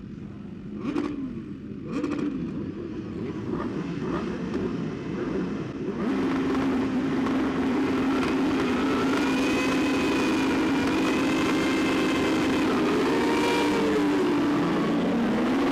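Superbike inline-four engine blipped twice, then held at a steady high rev on launch control from about six seconds in, with other race bikes' engines revving around it. Near the end the revs dip and climb again.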